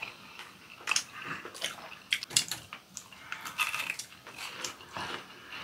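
Eating sounds: chewing and biting, with scattered short clicks of chopsticks against ceramic bowls.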